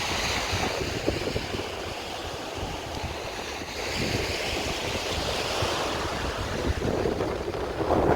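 Sea waves washing onto a beach, the surf swelling twice, with wind buffeting the microphone.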